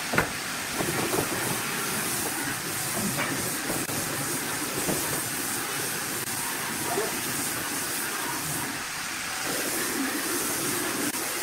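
Steady hiss with scattered light knocks and clicks, the metal pipe clamps and wooden frame being handled and adjusted on a wooden tabletop.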